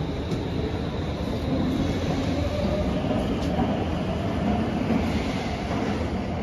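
Stockholm metro train running out of sight in the station or tunnel: a steady rumble with a faint whine that drifts in pitch.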